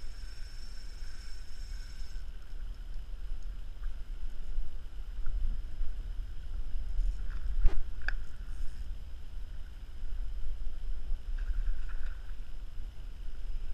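Wind rumbling on the microphone over water slapping against a plastic kayak hull. One sharp knock about eight seconds in.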